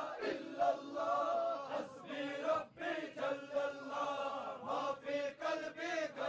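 A group of men chanting a devotional hymn together in praise of God.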